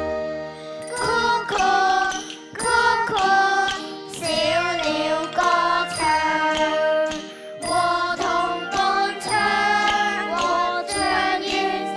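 Children's song performed live: a sung melody over instrumental accompaniment, with light chiming tinkles.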